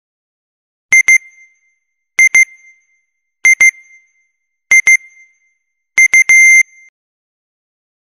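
Electronic countdown-timer alarm: five groups of short high-pitched double beeps, one group about every second and a quarter, the last ending in a longer beep. It signals that the 20-minute countdown has reached zero.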